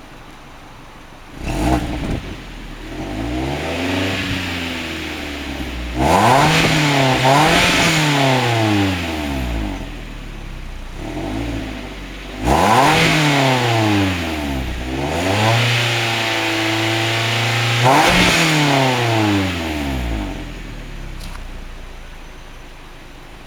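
2006 Kia Spectra's four-cylinder engine, fitted with an equal-length header and downpipe, heard from the exhaust at the back of the car. It idles, then is revved up and let fall several times, with one rev held steady for about two seconds, and settles back to idle near the end.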